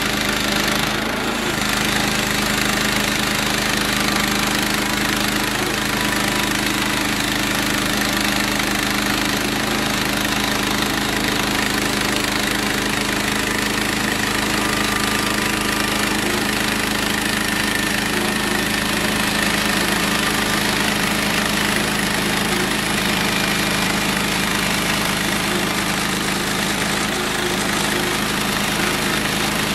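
Small gas engine of a Harbor Freight bandsaw mill running steadily while its blade saws through a pine log, a constant engine hum under a steady hiss.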